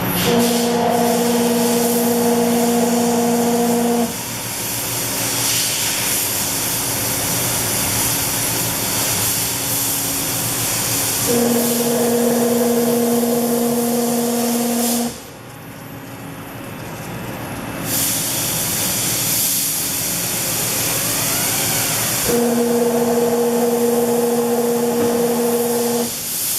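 Toyota Tercel running during a test for abnormal noises: a steady loud hiss with a steady humming tone that comes in three times for about four seconds each; no knock or rattle stands out.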